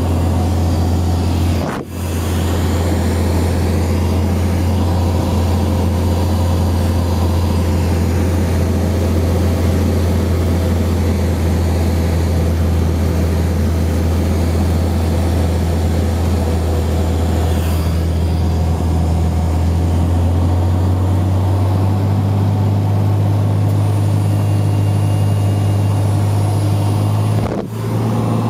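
Cessna 182's engine and propeller droning steadily, heard inside the cabin with airflow noise. The drone steps up a little in pitch about two-thirds of the way through, and the sound dips briefly twice.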